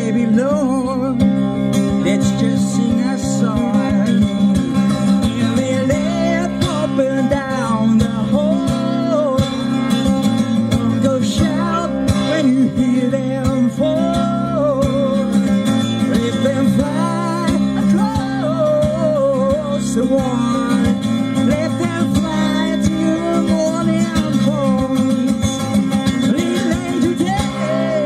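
Live acoustic guitar song: a strummed steel-string acoustic guitar with a sung melody over it.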